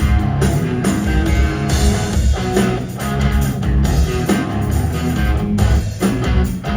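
Live rock band playing an instrumental passage without vocals: electric guitars and bass guitar over drums, heard as loud, full-band concert sound.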